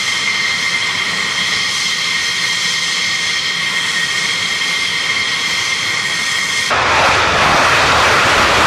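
Fighter jet engines idling, a steady high whine with several held tones. About seven seconds in it switches abruptly to the louder, broad noise of an F-16's jet engine running at high power on the runway.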